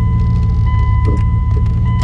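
Dodge Ram pickup's engine running steadily with a low rumble, while a steady high-pitched electronic tone sounds over it.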